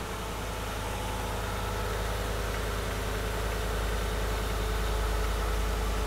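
V8 truck engine idling steadily with all eight cylinders firing.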